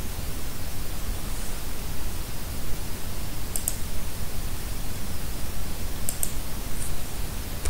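Steady microphone hiss with a low rumble, and a few short computer mouse clicks about three and a half seconds in and again around six seconds in.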